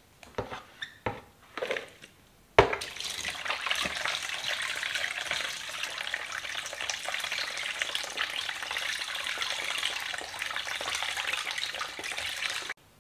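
Kitchen tap running into a plastic bowl while pieces of beef kikil are washed by hand. A few light knocks come first; the water starts suddenly about two and a half seconds in, runs steadily, and stops abruptly near the end.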